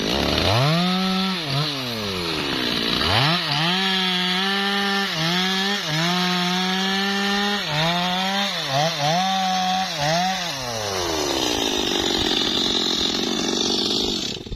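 Two-stroke chainsaw revving up briefly, dropping back, then held at full throttle for about seven seconds while cutting through a log, its pitch dipping each time the chain bites. It then falls back to a steady idle near the end.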